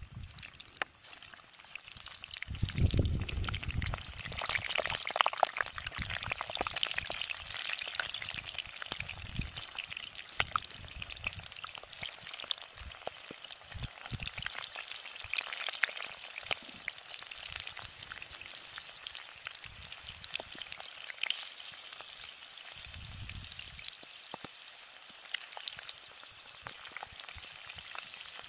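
Potato-starch-coated loaches frying in a wide pan of hot oil: a dense, steady sizzle of fine crackles that swells about two and a half seconds in as more fish go into the oil. This is the first fry of a double-fried dish. A few low thumps come about three seconds in and again near the end.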